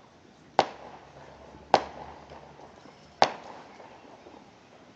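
Three sharp firework bangs, about a second and a half apart, the middle one the loudest.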